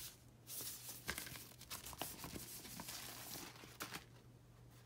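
Paper inner sleeve rustling as a vinyl LP is slid out of it and handled, with a few light clicks; the rustle dies away near the end.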